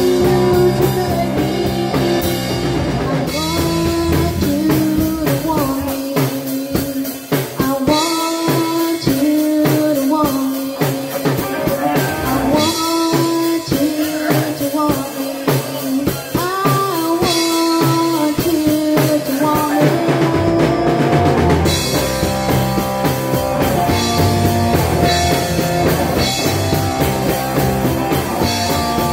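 Live rock band playing amplified electric guitars and a drum kit with a woman singing. About six seconds in, the bass and kick drum drop out for a stretch of over ten seconds, leaving guitar, lighter drumming and voice, before the full band comes back in.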